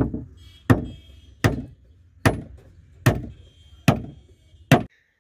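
Small hatchet striking a wooden post, seven sharp blows evenly spaced at a steady, unhurried pace.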